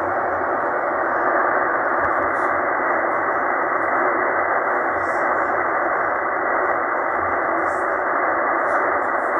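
Tecsun H-501X portable shortwave receiver tuned to 7268 kHz lower sideband on the 40-metre band, putting out steady band noise: an even hiss cut off sharply above about 2 kHz by the sideband filter.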